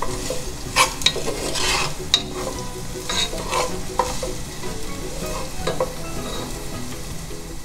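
Chopped onion sizzling gently in olive oil in a pot while a utensil stirs it, with repeated short scrapes and clicks against the pot. The onion is sweating over medium-low heat until it turns translucent.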